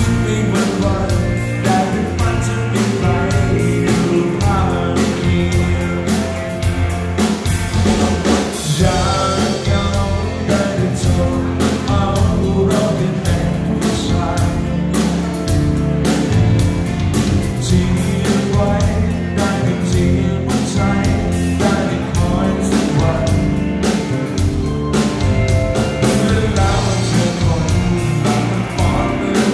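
Live rock band playing loudly: a man sings lead over electric guitars, bass guitar and a drum kit.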